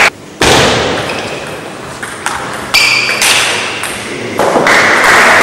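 Table tennis ball striking bats and the table in a rally, a few sharp, ringing clicks echoing around the hall. About four and a half seconds in, audience applause starts and keeps going.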